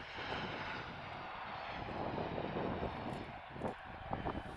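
Cessna Citation Latitude business jet's twin turbofan engines, a steady jet rush as it arrives to land.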